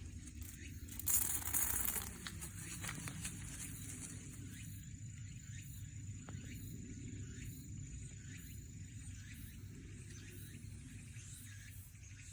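Shiba Inu biting into raw cabbage: a burst of crisp crunching about a second in, then fainter chewing.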